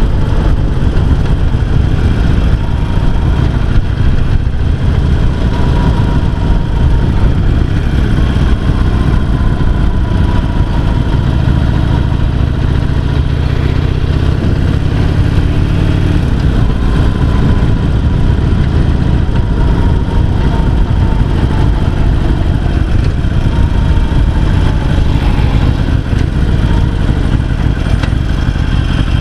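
Harley-Davidson XL883C Sportster's 883 cc air-cooled V-twin engine running on the move, over steady wind and road noise. The engine note rises for a few seconds about midway through, then drops back.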